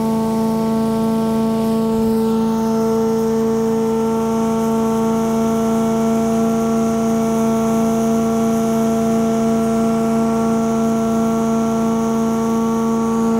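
Delux Tornado 4800 vacuum recovery system running steadily with a loud, even hum, sucking the last of the wash water up through the Vacu-Boom.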